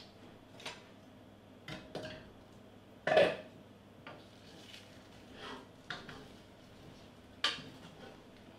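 Scattered clinks and knocks of a utensil and lid on a stainless steel saucepan of rice being stirred, the loudest clatter about three seconds in and another sharp one near the end.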